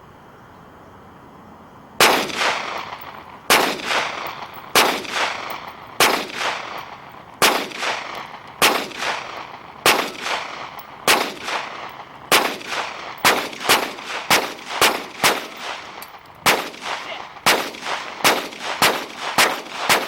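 A gun fired in a long string of single shots, each sharp crack trailing off. The shots begin about two seconds in at roughly one a second and come faster toward the end.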